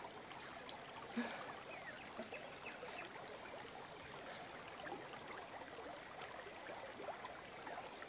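Faint river water lapping and trickling against the bank: a soft, even wash with small scattered trickles.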